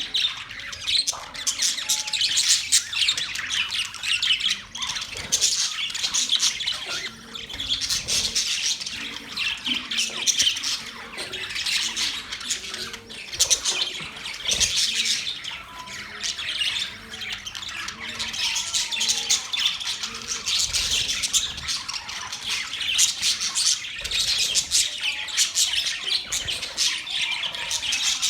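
Several budgerigars chattering, chirping and squawking continuously, a dense warble of quick high notes.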